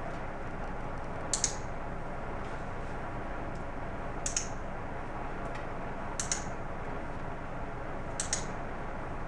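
Dog-training clicker clicked four times, about every two seconds, each a quick double click, marking the dog's correct position for a treat. A steady hiss of room noise runs underneath.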